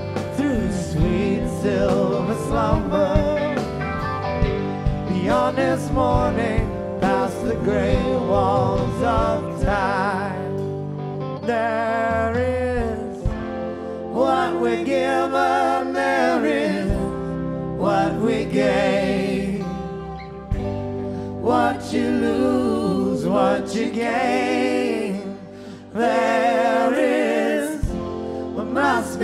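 A live rock band playing an instrumental jam: an electric guitar lead with bending, wavering notes over bass and drums.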